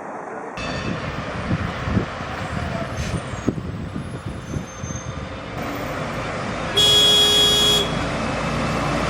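A road vehicle's engine and traffic rumble, with a few knocks, and a horn sounding once for about a second near the end.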